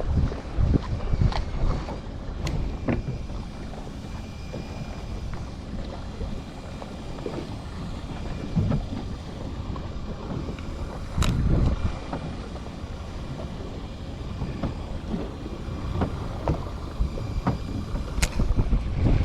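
Wind buffeting the microphone aboard a small fishing boat at sea, a gusty low rumble that swells and eases, with a few sharp knocks on board.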